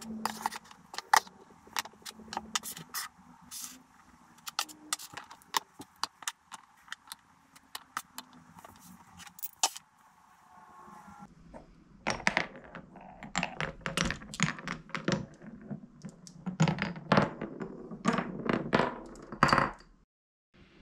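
Solid wooden Cuboro blocks knocking and clacking together as they are set into place on a stack, in scattered sharp knocks. About twelve seconds in, a louder, denser run of wooden knocks with a low rumble sets in, stopping suddenly near the end.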